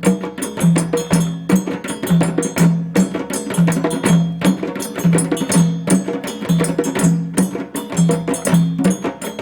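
Djembe drumming: a fast, repeating rhythm of sharp slaps and tones, with a deep bass stroke recurring about once a second.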